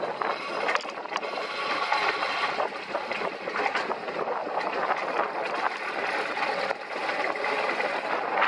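Alpine coaster sled running along its steel tube rails: steady rolling noise from its wheels on the track, with many small rattling clicks throughout.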